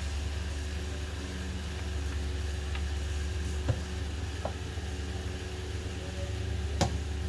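A few light clicks and knocks from a kitchen cart's wooden cabinet door being handled and swung open, the sharpest click near the end, over a steady low hum.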